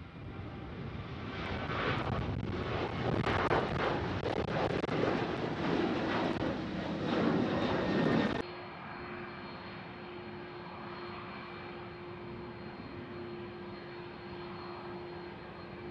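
Jet airliner engines, loud, rising over the first two seconds and holding. About eight seconds in the sound cuts off suddenly to a quieter, steady jet engine noise with a steady low whine.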